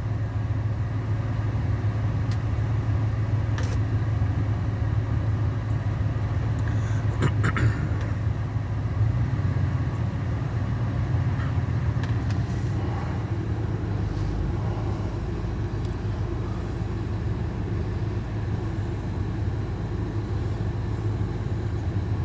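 2000 Ford F-150 Harley-Davidson's 5.4-litre V8 running steadily, heard inside the closed cab with the heater fan blowing. A few short clicks in the first eight seconds.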